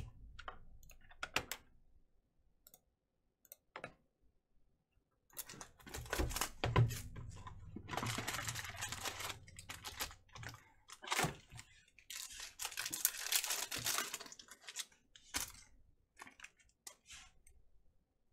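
A foil trading-card pack being torn open and crinkled by hand, in two long spells of crackling about five and twelve seconds in, with light clicks and taps of the cards in between and afterwards.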